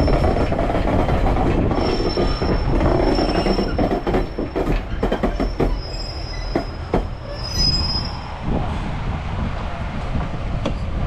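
Class 143 Pacer railbus rolling in at low speed with a steady rumble from its diesel and running gear. High-pitched wheel flange squeal rises about two seconds in and again for a couple of seconds past the middle, between clicks of the wheels over rail joints.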